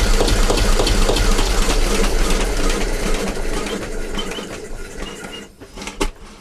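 Vintage Petter McLaren B2 diesel engine running steadily, then shut off and running down to a stop over about two seconds, with a sharp click near the end.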